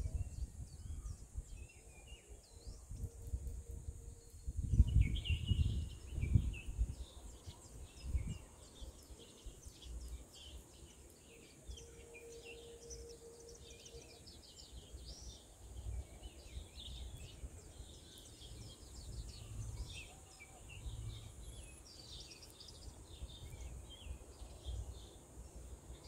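Many small birds chirping in short repeated calls, with a steady high hiss underneath. Wind gusts rumble on the microphone, loudest around five to seven seconds in and again briefly near eight seconds.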